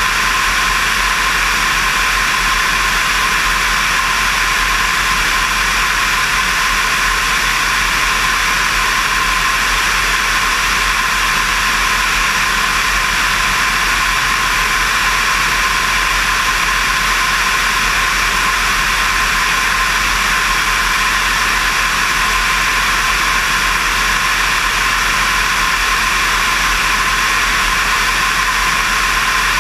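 Steady rush of airflow and engine drone from a light aircraft in cruising flight, heard through a camera mounted out on the wing, so wind noise on the microphone dominates. It holds the same level with no change.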